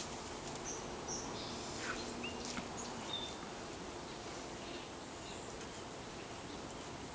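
Steady outdoor background noise with a few brief bird chirps in the first three seconds and a couple of faint taps.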